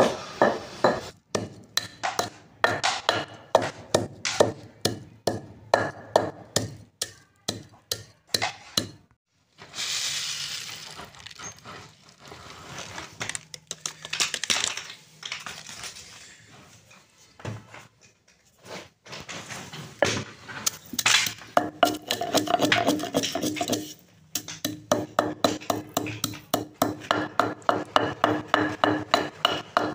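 Wooden pestle pounding whole spices in a stone mortar: an even run of sharp strikes, about two a second. About a third of the way in the pounding breaks off for several seconds while more seeds are poured in from a paper packet with a rustle. It then resumes faster, about three strikes a second.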